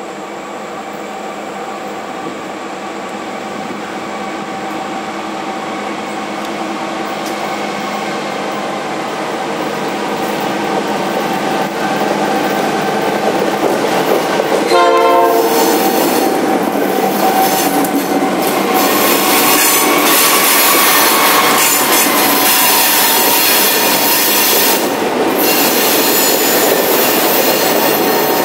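A Norfolk Southern freight train led by a GP38-2 and a B32-8 diesel locomotive drifts down a mountain grade. The locomotives' steady tones grow louder as they approach and pass about halfway through. Freight cars then roll by, their wheels rumbling with a squeal of wheel flanges on the curve.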